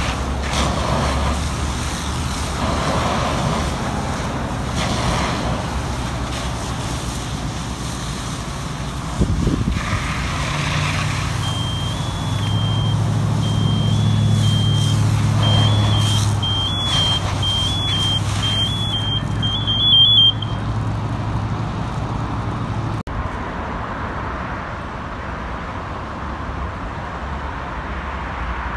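Fire engine's diesel engine running steadily while a fire hose sprays water onto a burning box truck, with wind on the microphone. For several seconds midway a high, broken beeping sounds over it.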